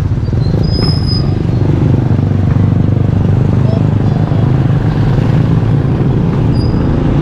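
Engine of the vehicle carrying the camera running steadily at road speed, with wind rumbling on the microphone.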